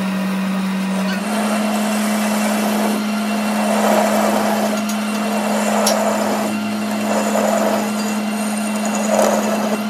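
Metal lathe running as its cutting tool turns down a metal shaft: a steady motor hum with swells of cutting noise every second or two.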